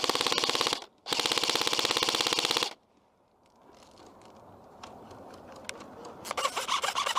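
Airsoft electric gun (a G&G-based M4 CQB) firing full auto, close up: a burst of just under a second, a brief pause, then a longer burst of about a second and a half, at roughly twenty shots a second. Near the end comes a fainter, more ragged rattle of rapid fire.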